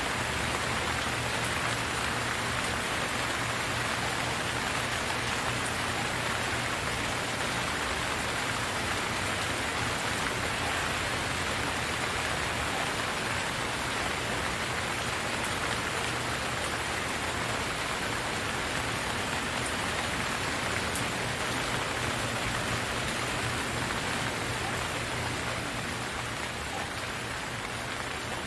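Steady rain falling and pattering on surfaces, an even hiss of many drops with scattered faint ticks.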